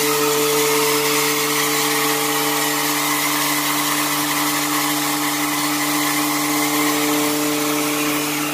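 Rexroth A10VO71 axial piston hydraulic pump running on an electric-motor test bench under a pressure test after its rebuild: a steady whine of several held tones over an even hiss. One of the lower tones fades out near the end.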